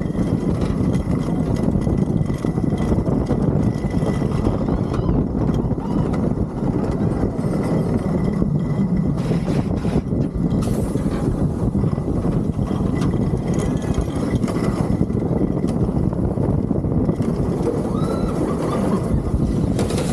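S&S Free Fly roller coaster train running along its steel track: a steady, loud rumble of wheels on rail.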